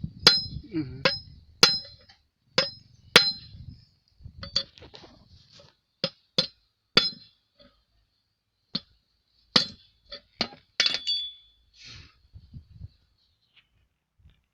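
Steel tools striking and clinking against the steel parts of a disc plough's bearing hub: irregular sharp metallic hits, each with a short ring, coming thick in the first few seconds and thinning out later.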